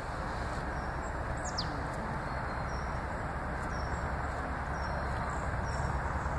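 Outdoor forest ambience: a steady low rushing noise with a few faint high bird chirps.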